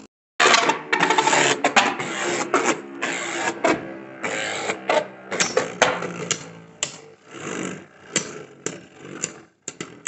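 Two Beyblade Burst spinning tops, one of them Divine Belial, spinning and clashing in a clear plastic stadium. A dense rattle of hits and clicks against each other and the stadium wall begins abruptly about half a second in.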